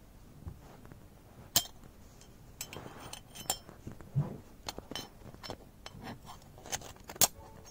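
Metal parts of an S-type keg valve clinking and clicking as they are picked apart with pliers. The sharp clicks come at irregular intervals, with the loudest about a second and a half in and another near the end.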